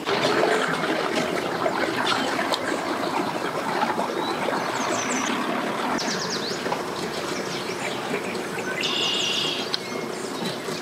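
Outboard boat motors running slowly in a steady wash of noise, with birds chirping briefly several times in the middle and near the end.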